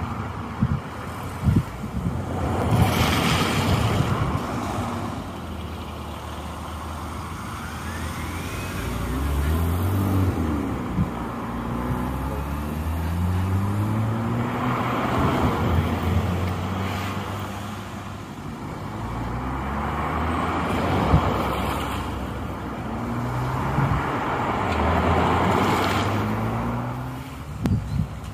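Road traffic: cars passing close by one after another. Several can be heard accelerating away, their engine pitch climbing and dropping back at each gear change.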